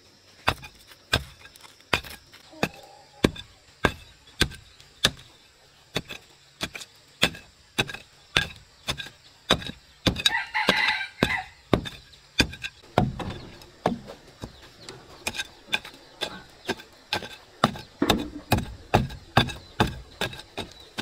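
A steady run of sharp knocks or chopping strikes, about two to three a second, with one rooster crow about ten seconds in.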